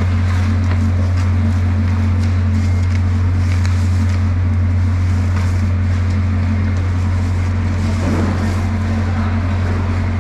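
A steady low machine hum, like a running engine, with faint crunching and rustling of crushed ice as hands pack it over a fish in a steel trough.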